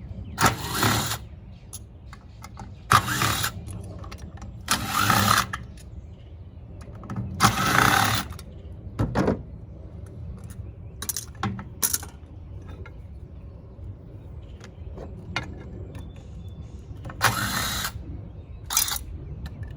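A power drill/driver run in short bursts, about five of them under a second or so each, with clicks and rattles between, as screws are backed out while taking apart a tankless water heater.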